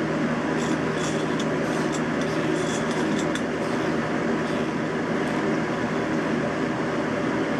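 Steady mechanical hum with several held tones from a powered-up Haas CNC milling machine, with a few faint ticks over it.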